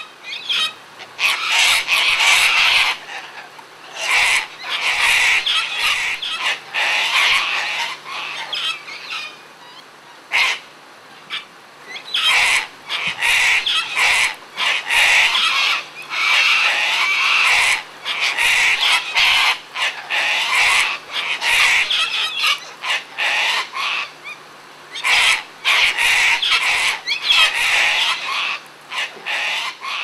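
A flock of sulphur-crested cockatoos screeching, several birds at once, squabbling as they feed. The loud, harsh screeches come in bursts of a second or two with short gaps between them.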